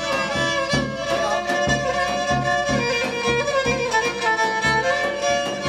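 Pontic lyra (kemenche) bowed in an instrumental passage between sung verses of a Pontic Greek folk tune, over a steady low beat of about three thumps a second.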